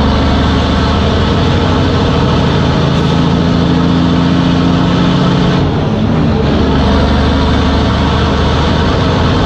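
Freightliner Columbia's Detroit Diesel engine running steadily at idle, loud and even, with a brief rise and fall in engine pitch about six seconds in.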